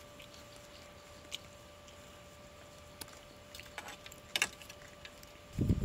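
Faint scattered clicks and light knocks over a steady faint hum, with a small cluster of clicks about four seconds in and a low thump near the end.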